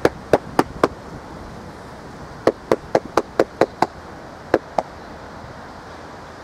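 A run of sharp knocks or smacks: four quick ones, a pause of about a second and a half, then seven more at about four a second, and two last ones.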